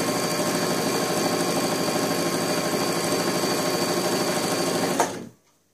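Brother XL-6053 household sewing machine running at a steady speed, sewing a straight stitch, with a fast even rhythm of needle strokes. It stops with a short click about five seconds in.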